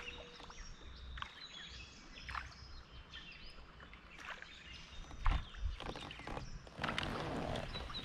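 Birds chirping over creek ambience, with a thump about five seconds in and a rush of noise, like water splashing, near the end.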